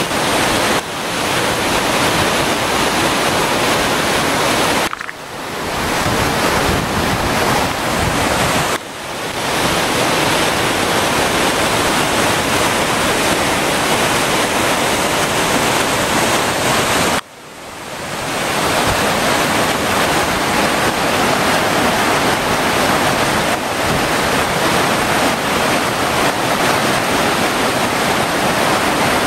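Steady rushing of a tiered waterfall pouring over rock into a creek. The rush dips briefly three times and fades back in.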